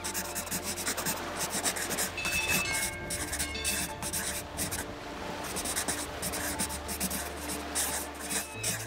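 Scratchy drawing or brush strokes, like pen or pencil rubbing on paper, repeating over background music with long held low notes. A few short, high, bell-like tones sound about a third of the way in.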